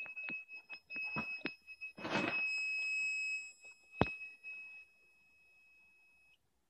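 Fire alarm control panel's built-in piezo buzzer sounding a steady high-pitched tone while the panel is in alarm from a tripped pull station, mixed with handling knocks, a loud rustle about two seconds in and a sharp knock about four seconds in. The tone cuts off suddenly near the end as the acknowledge button is pressed.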